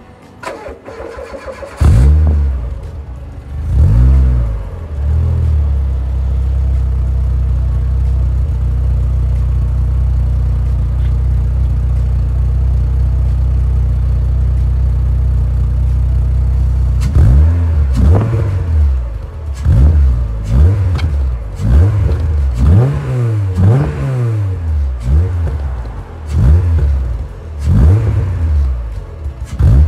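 Renault Clio 1.8 16v's four-cylinder petrol engine heard at the tailpipe. It fires up about two seconds in and is blipped twice, then idles steadily. From about halfway it is revved in quick blips, roughly one a second, to the end.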